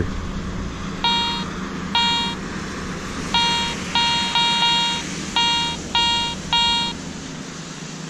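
Garrett Ace 400 metal detector beeping as its coil is swept over a dug hole: about eight beeps at the same pitch, each well under a second long. The detector is giving a repeating target reading of 83 to 89, which the detectorist thinks could be silver.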